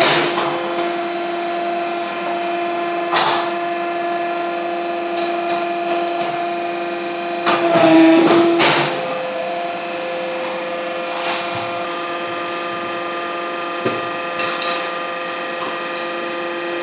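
A machine running with a steady hum of several fixed pitches, which shifts to a different pitch about eight seconds in. Three or four sharp metallic knocks, like tool strikes, cut through it.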